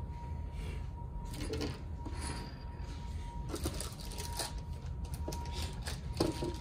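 Clear plastic parts bags crinkling and rustling as they are handled, in irregular bursts that grow denser in the second half.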